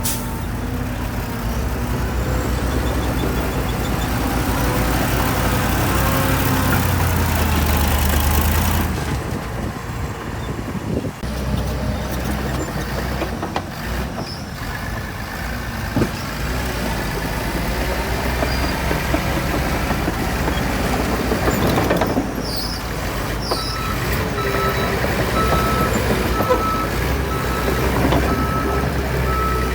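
Heavy diesel earthmoving machinery running steadily under load. From about three-quarters of the way in, a reversing alarm beeps repeatedly.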